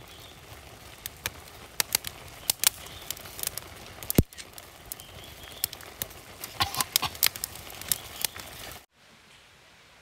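Wood campfire crackling, with sharp, irregular pops; the sound cuts off abruptly near the end.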